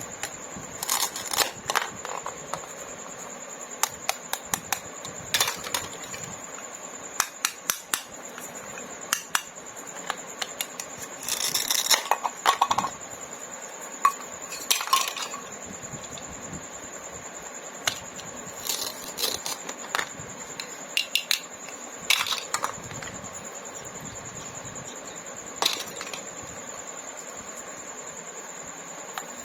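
Small hard plastic toy pieces clicking and clacking against each other and a hard surface in irregular sharp taps, as toy fruit and vegetables are cut with a toy knife. A faint steady high tone runs underneath.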